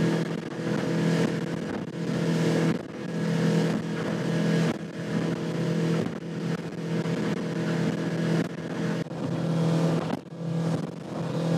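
Motorboat engine running steadily at cruising speed, with the rush of water and wind around the hull; the level rises and dips every second or two.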